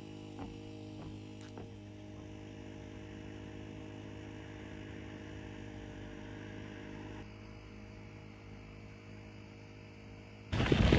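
A steady low hum made of several held tones, with a few faint clicks in the first couple of seconds. Half a second before the end, a loud rushing noise cuts in abruptly.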